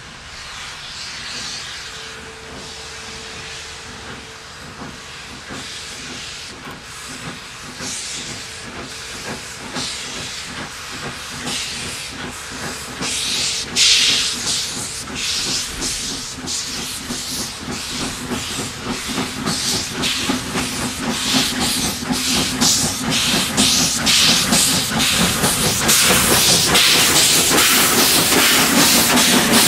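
National Railways of Zimbabwe class 14A Beyer Garratt steam locomotive working a mixed freight train, its exhaust chuffs growing louder and quicker as it approaches and passes close by. A sudden loud burst of steam hiss comes about 14 seconds in.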